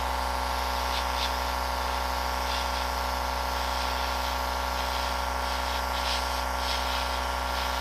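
Airbrush spraying a clear coat onto a plastic model car body: a steady hiss that wavers slightly, over the steady low hum of a running motor.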